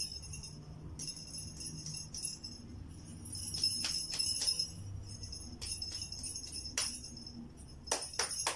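Small jingle bells shaking in repeated bursts of a second or two each. Near the end come a few sharp clicks.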